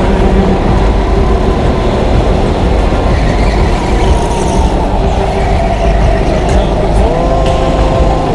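Indoor racing go-kart running at speed, heard from the driver's seat: a steady rush of motor and tyre noise with a whine that rises in pitch again about seven seconds in.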